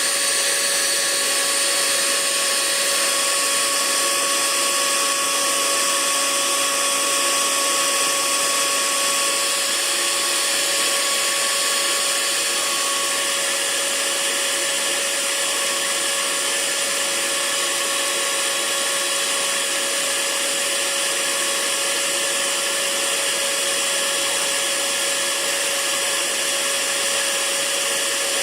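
Hair dryer running steadily: a continuous rush of air with a faint steady whine from the motor.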